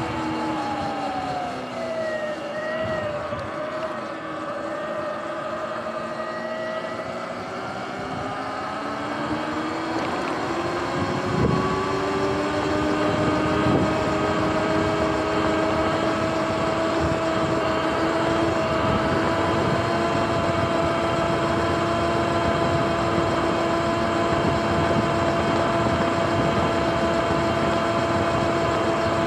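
Sur-Ron electric dirt bike's motor and drive whining under way over tyre and wind noise. The whine falls in pitch as the bike slows in the first few seconds, climbs again around ten seconds in, then holds steady at cruising speed; a single knock about eleven seconds in.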